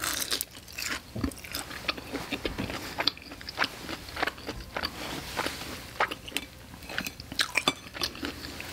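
Biting into and chewing a panko-crusted fried chicken cutlet (chicken katsu): a bite at the start, then irregular crunching as it is chewed.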